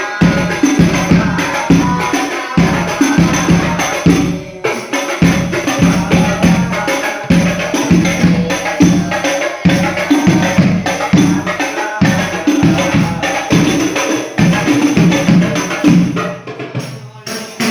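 Rebana frame drums, the hand drums of a sholawat ensemble, playing a fast, steady rhythm of repeated strokes. There is a short break about four and a half seconds in, and the playing thins out near the end.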